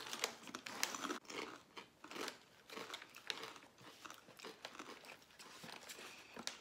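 Crunching and chewing of Bare baked barbecue-flavoured sweet potato chips, an irregular run of small crisp crunches.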